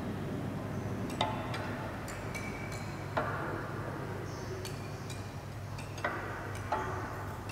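A handful of sharp, briefly ringing ticks at irregular intervals over a steady low hum.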